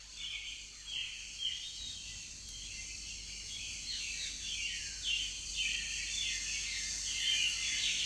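A flock of parrots calling: a steady stream of short squawks that fall in pitch, about two a second and often overlapping, over a steady high hiss.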